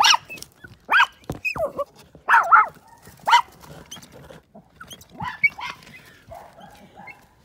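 Dogs barking at a squirrel they have cornered, in short sharp barks and yelps. Several come close together in the first three and a half seconds, and a few more come around five seconds in.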